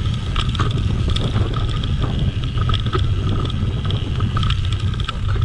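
Wind rushing over the microphone on a moving mountain bike, with the tyres rumbling over a dirt singletrack and the bike rattling and clicking over bumps.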